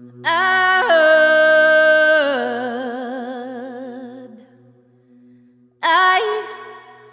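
A woman's solo singing voice slides up into a long held note, which then wavers with vibrato and fades. A second, shorter sung phrase begins near the end. A low steady drone sustains underneath.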